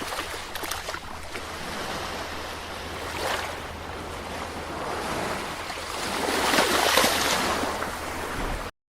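Ocean surf: waves washing in as a steady rush of water. A wave swells about three seconds in and a bigger one breaks around seven seconds. The sound then cuts off abruptly into silence near the end.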